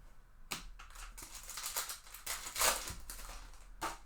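Crisp rustling and scraping of trading cards and a foil pack wrapper being handled, as a run of short scrapes, loudest near three seconds in, with a sharp last one near the end.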